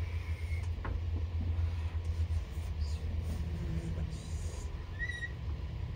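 Dry-erase marker drawing lines on a whiteboard, giving a few faint, brief squeaks and a light tap about a second in, over a steady low rumble.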